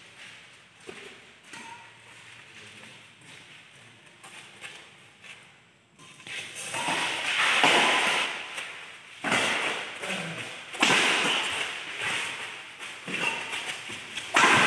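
Sounds of a doubles badminton rally in a sheet-metal hall: faint racket strikes on the shuttlecock at first, then from about six seconds in a series of loud, sudden hits and court noises that trail off in echo.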